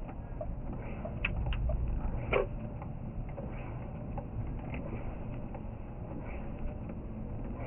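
Inside a car driving slowly on a snow-covered road: a steady low rumble of engine and tyres, with a few short clicks and squeaks a little over a second in and again at about two and a half seconds.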